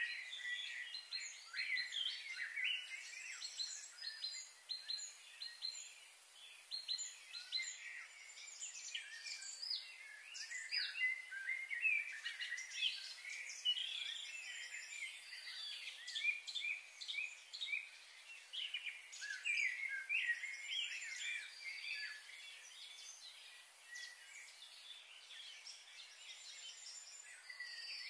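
Wild birds chirping and singing together in a dense chorus of many short, high calls and trills, overlapping without a break.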